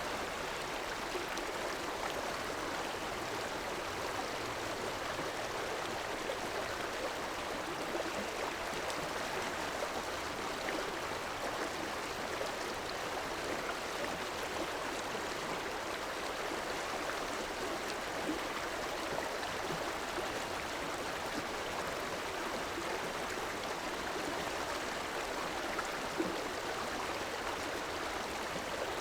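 River water flowing steadily, an even, unbroken rush of water noise.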